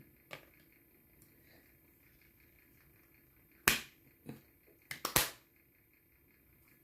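A few sharp plastic clicks and snaps from a phone case being handled and fitted, the loudest about halfway through and the last two close together.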